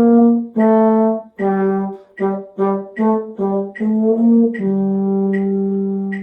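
A brass or wind instrument playing a short beginner band phrase of about nine separate notes, the last one held for about a second and a half. A metronome ticks steadily underneath, about once every 0.8 s.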